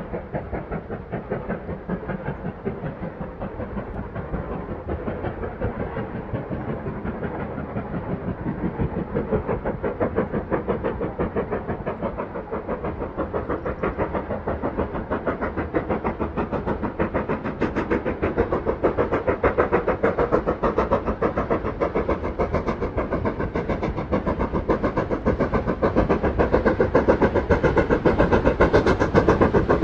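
Heritage train running with a fast, even beat, growing louder in the last third.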